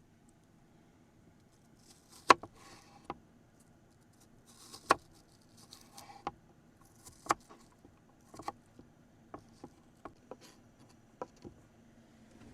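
Irregular knocks and clicks of objects being handled and set down, about a dozen, with brief rustling between them; the loudest knock comes about two seconds in.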